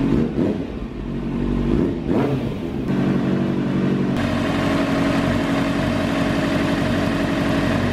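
2012 Kawasaki ZX-6R 600 cc inline-four idling steadily as it warms up, through an aftermarket TSR slip-on. About four seconds in, the electric radiator fan switches on at 102 °C, adding a steady whirring rush over the idle.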